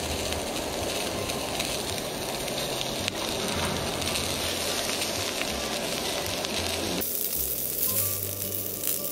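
Meat sizzling steadily on a hot steak plate. About seven seconds in the sizzle turns brighter and hissier.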